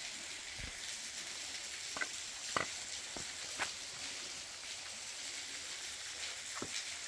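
Steady soft hiss of a thin waterfall trickle splashing down from the grotto's overhang, with a few scattered sharp ticks.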